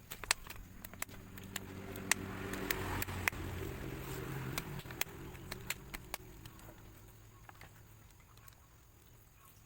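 A motor vehicle's engine passing by, swelling to its loudest about three seconds in and then fading, with scattered sharp clicks over it.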